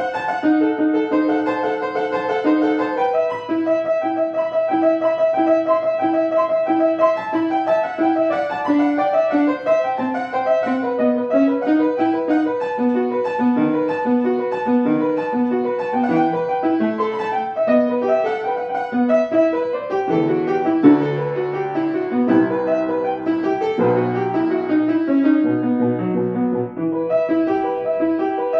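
Solo piano playing a classical keyboard piece, with quick repeated-note figures in the treble over a moving bass line.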